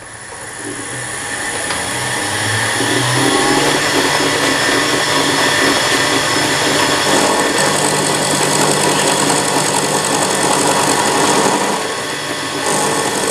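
Drill-press mill milling a metal part with an end mill: a loud, steady machining noise with a high whine. It builds up over the first few seconds and dips briefly about twelve seconds in.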